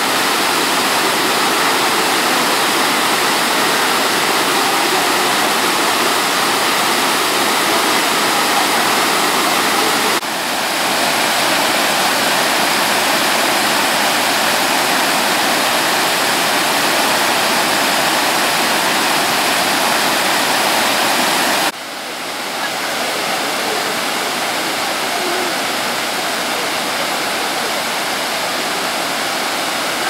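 Whitewater of the Fukiwari Falls cascades rushing over smooth rock ledges: a dense, steady rush of falling water. It breaks off abruptly about ten seconds in and again about twenty-two seconds in, a little quieter after the second break.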